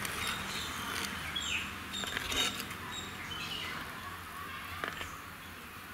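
Small birds chirping in short, scattered calls, with a couple of faint knocks about two and five seconds in.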